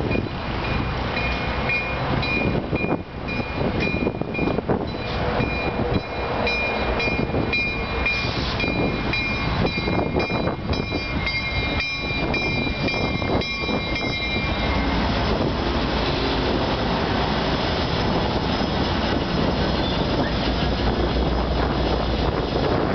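GO Transit commuter train hauled by an EMD F59PH diesel locomotive arriving and slowing at a station platform. A high steady squeal with repeated wheel clicks fades out about two-thirds of the way through. A continuous low diesel rumble follows, with the locomotive standing close by.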